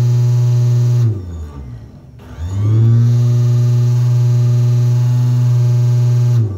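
Mixer's 220 V universal motor with a drill chuck on its shaft, spinning up and running with a steady humming whine, switched off about a second in, then switched on again and run for about four seconds before winding down near the end. It is a test run of the chuck's alignment, and it runs without much vibration.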